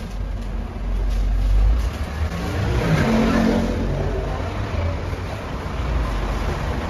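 Low, steady motor rumble that swells about a second in and stays loud.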